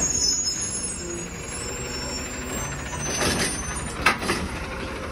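CNG-powered automated side-loader garbage truck running, with a short air-brake hiss about three seconds in and a sharp click about a second later.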